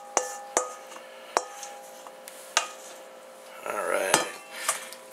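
Wooden spoon tapping and scraping a metal mixing bowl to empty it, about four sharp knocks, each leaving the bowl ringing, then a longer scrape near the end.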